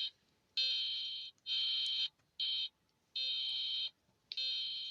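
Canadian emergency alert attention tone: five high electronic beeps of uneven length, each under a second, with short gaps between them.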